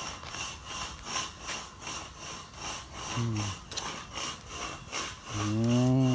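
A steady, high-pitched rasping pulse repeating about three times a second throughout. A man's voice gives a short sound about three seconds in and a longer drawn-out one near the end.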